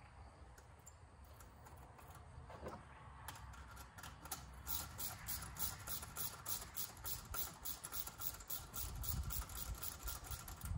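Ratchet with a 10 mm deep socket clicking as it loosens an intake filter's hose clamp. A few scattered clicks at first, then from about halfway an even run of clicks, about four or five a second.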